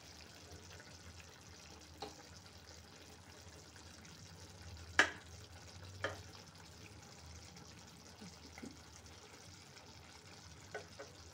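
A metal utensil clicking against a steel kadai a few times, the sharpest about five seconds in, as the pieces of a simmering brinjal curry are poked to check whether they are cooked, over a faint steady low hum.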